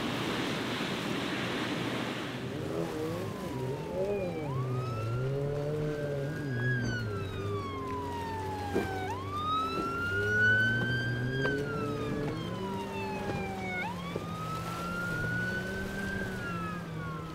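Police boat siren wailing, each cycle rising quickly and then falling slowly, about three cycles, over a lower engine drone that wavers in pitch. Wind and water noise fill the first two seconds, before the siren starts.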